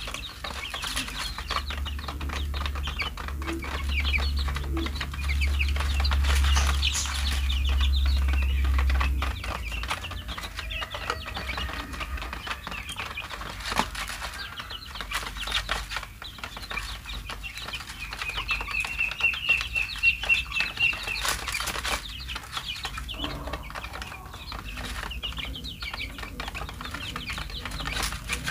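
Young chicks peeping while pecking feed from a plastic tray, with many quick pecking taps and a run of repeated peeps about twenty seconds in. A low hum sits under it for roughly the first nine seconds, then stops.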